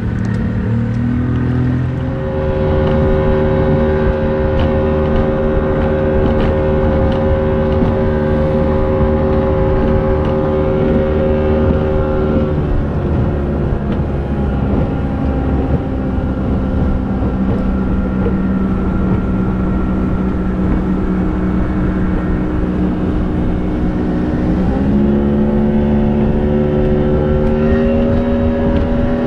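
A small boat's motor running at speed under way across open water, a steady engine drone. Its pitch climbs about two seconds in, eases down around the middle, and climbs again near the end as the throttle changes.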